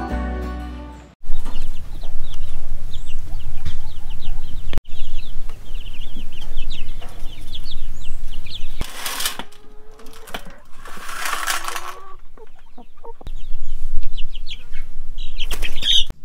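Chickens clucking and chirping in many short, quick, high calls, with two loud rustling flurries near the middle, over a steady low rumble.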